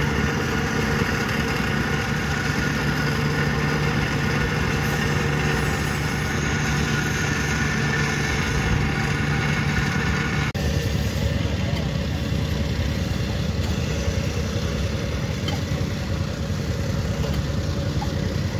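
Vibratory plate compactor's small petrol engine running steadily, with a constant low hum, as it compacts sand fill. About ten and a half seconds in, the sound cuts abruptly to a different, rougher steady machine noise.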